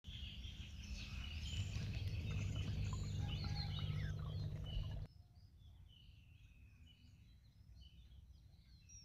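Birds chirping and singing over a low steady rumble; the rumble and most of the birdsong drop away suddenly about five seconds in, leaving fainter bird calls.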